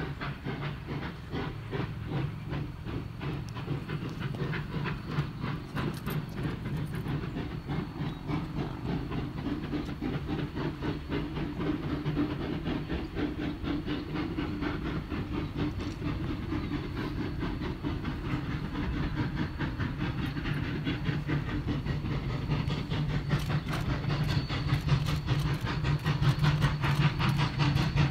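Steam train running: a steady hiss under fast, continuous clicking, growing louder toward the end.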